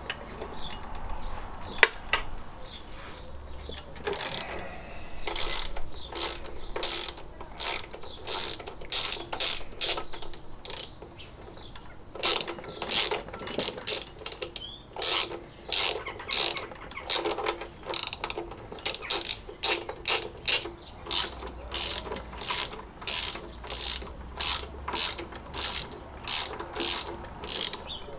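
Socket ratchet clicking in repeated back-and-forth strokes, about one to two a second, as it spins a 13 mm rocker nut off a Fiat 500 cylinder head, the nut already broken loose. There is a brief pause partway through.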